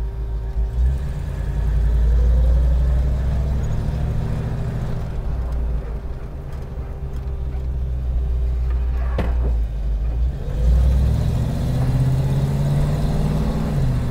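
1956 Ford F-100 panel truck's engine heard from inside the cab as the truck pulls away and drives off, a low steady rumble whose note climbs twice as it accelerates. A single sharp click sounds about nine seconds in.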